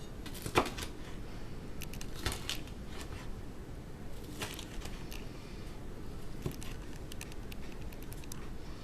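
Kitchen knife cutting a halved sweet red pepper into large pieces, with irregular knocks of the blade on the cutting board, the sharpest about half a second in.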